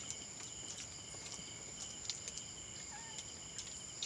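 Night insects trilling steadily at a high pitch, with a few scattered faint clicks.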